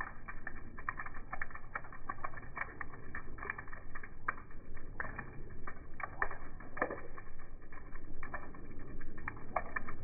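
Water running off a corrugated roof edge and splashing onto a wet concrete ledge: irregular drips and plops, a few with a falling pitch, over a low rumble.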